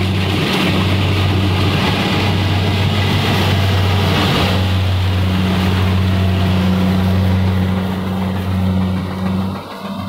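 Kubota rice combine harvester running steadily while cutting a rice crop: a constant deep engine drone with machinery noise over it, dipping briefly in level near the end.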